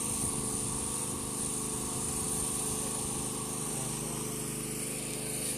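A small engine running steadily at a fixed speed, giving an even, unchanging hum.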